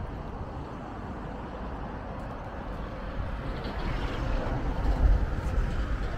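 Street ambience of road traffic: a steady hum of passing vehicles with a low rumble that swells about five seconds in.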